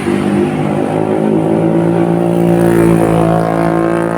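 A large bus engine running loudly close by, its low drone rising slightly in pitch in the second half as it gathers speed.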